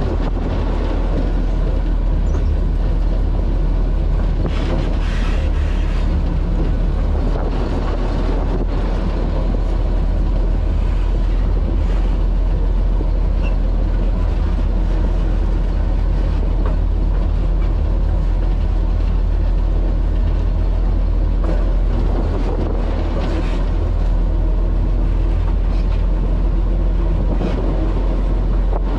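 Cummins HBI-600 naturally aspirated six-cylinder diesel of a 1949 General Electric diesel-electric locomotive running steadily, a deep, even engine sound with faint clicks over it.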